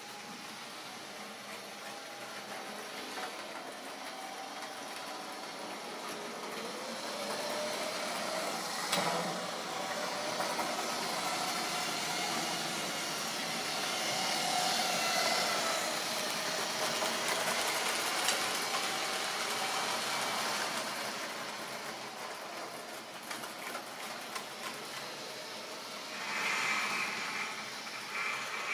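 Model railway train running on the track: a steady rumbling run with a faint wavering whine, growing louder to a peak about halfway through and then fading away. Two short bursts of noise near the end.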